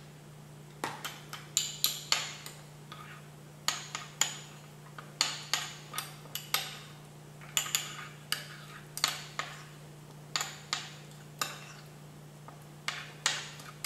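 A spoon clinking and tapping against a bowl in quick irregular clusters as a chili bean sauce mixture is stirred together.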